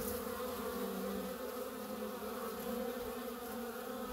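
Many honeybees buzzing close up inside an open hive box, a steady, even hum.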